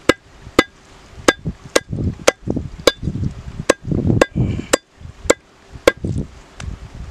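A large curved knife chopping chicken breast meat on a wooden log block, with sharp chops about twice a second. Softer thuds fall between the chops.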